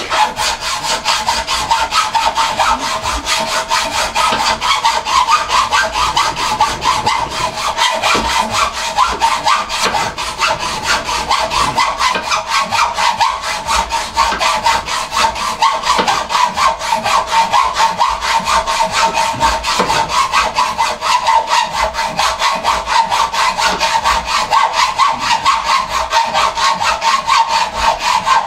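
Hand hacksaw cutting through a round metal bar clamped in a vice, in steady back-and-forth strokes with a ringing metallic rasp.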